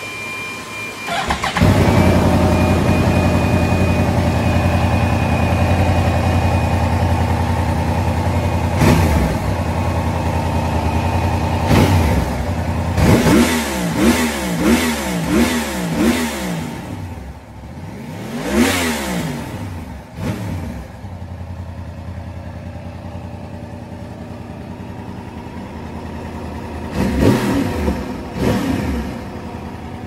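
Yamaha YZF-R1 inline-four sportbike engine on its stock exhaust, starting about a second and a half in and settling to idle. It is revved in short throttle blips: a quick run of about five in the middle, a couple of bigger revs soon after, and a few more near the end.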